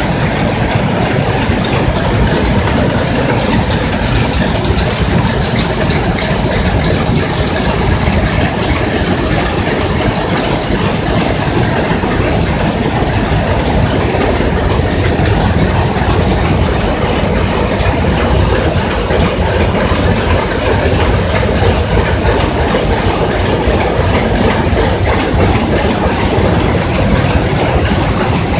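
Shiva DR II rapier looms weaving together: a steady, loud mechanical clatter of rapid, even beats that never pauses.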